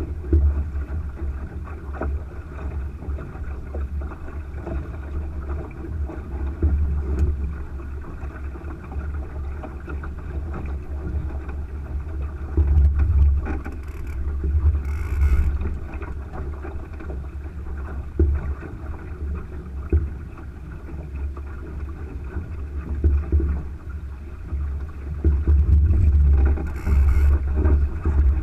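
Wind buffeting the microphone with a fluctuating low rumble, over water rushing along the hull of a Thistle sailing dinghy under way. Two brief hisses come, one about halfway through and one near the end.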